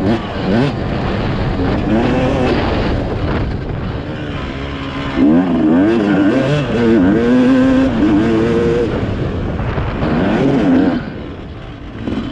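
Dirt bike engine revving up and down while riding a dirt trail, its pitch rising and falling repeatedly with the throttle and shifts. It eases off and goes quieter near the end.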